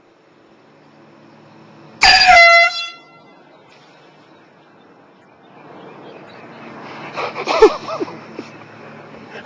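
A handheld air horn gives one loud, shrill blast about two seconds in, lasting under a second and cutting off sharply. Later comes a rising stretch of indistinct sound with a sharp knock.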